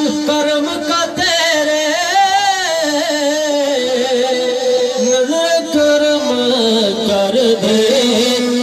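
A man singing an Urdu devotional naat, drawing out long held notes with a wavering run about two seconds in.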